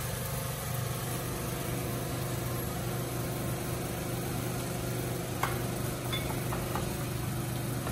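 Steady low mechanical hum of kitchen equipment with a soft hiss of pans frying over it; a light clink about five and a half seconds in.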